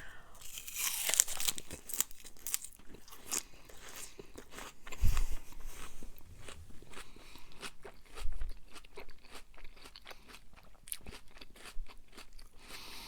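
Close-miked chewing of a mouthful of sloppy joe casserole: many small wet clicks and smacks of mouth and food, with a couple of soft low thuds.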